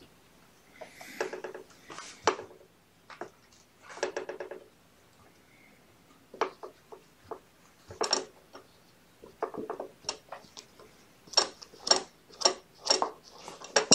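Plastic tray of a digital pet scale clicking, knocking and rattling as a kitten pushes under it and climbs onto it, with a run of louder knocks about two a second near the end.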